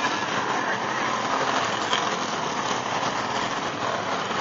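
Engines of a field of enduro race cars running on an oval track, a steady, dense wash of engine noise with no pauses.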